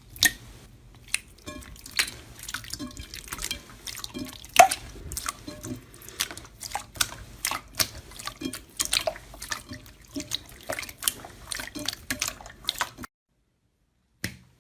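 Slime squished and worked by hand: an irregular run of sharp, wet clicks and pops that stops suddenly about thirteen seconds in, with one more click near the end.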